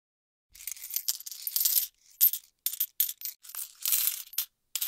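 Coins clinking and rattling against the glass of a jar in a string of short bursts, starting about half a second in.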